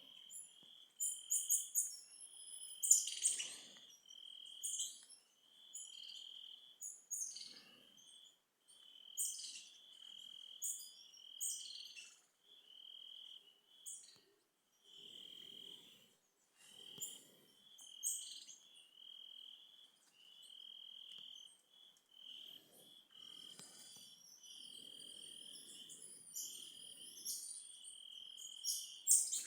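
An insect, cricket-like, trilling on one steady high pitch that breaks off briefly every second or two, with scattered short high-pitched bird chirps over it.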